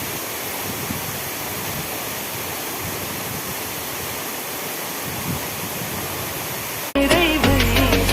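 A waterfall's falling water rushing steadily. About seven seconds in it cuts off abruptly and music with a bass line and melody starts.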